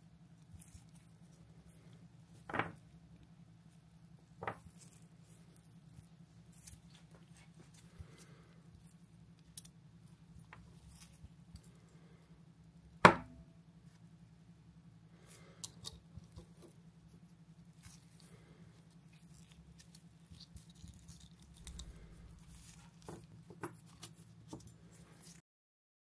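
Gloved hands handling the small parts of a SRAM Eagle GX rear derailleur (pulley wheels and cage plates), giving scattered light clicks and taps, with a couple of sharper clicks early on and the loudest one about halfway through. A steady low hum runs underneath.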